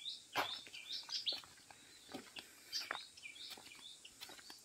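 Small birds chirping in quick, high, short calls, many overlapping, with a few sharper crunches of footsteps on a dry path.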